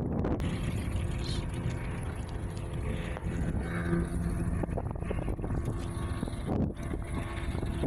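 Yamaha outboard motor on a small wooden fishing boat running steadily under way, with wind on the microphone.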